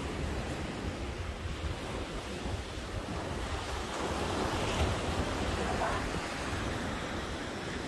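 Steady rushing of surf and wind at the shore, with wind buffeting the microphone as a fluttering low rumble.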